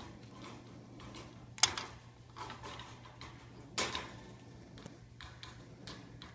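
Quaker parrot's beak tapping and pecking at a wooden mirror frame: a few sharp knocks, the loudest about a second and a half in and again near four seconds, with lighter ticks between.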